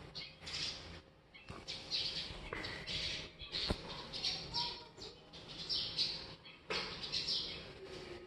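Birds chirping outdoors, short high calls repeating every half second or so. One sharp click sounds a little over halfway through.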